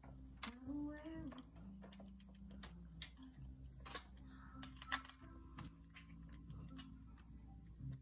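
Plastic LEGO bricks and minifigures clicking and tapping as they are handled on a tabletop, in scattered light clicks with a louder one about five seconds in. A faint steady low hum runs underneath.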